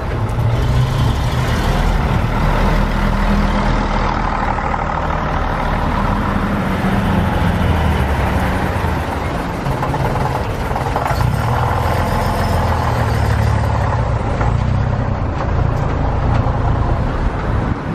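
Diesel engines of preserved buses running as they drive past close by: a 1969 AEC Swift single-decker, then a 1967 Leyland PD2 double-decker. A loud low engine note runs throughout, and its pitch shifts several times as the buses pull away.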